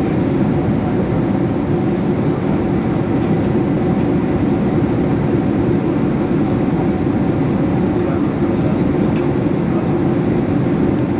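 Steady engine and airflow roar inside the cabin of a Boeing 767 climbing after takeoff, deep and even throughout.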